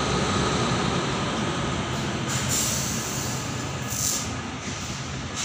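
WAP-7 electric locomotive creeping along at low speed, its blowers and traction equipment running with a steady low hum and a thin whine. Two short hisses come about two and four seconds in.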